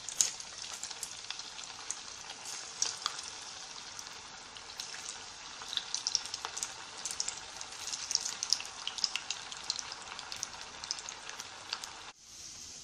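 Balls of bread vadai dough deep-frying in hot oil in a kadai: a steady sizzle dotted with many small crackles and pops, breaking off briefly near the end.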